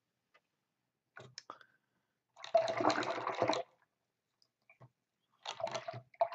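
Paintbrush being swished in a jar of rinse water, in two bursts of about a second each, after a few light clicks.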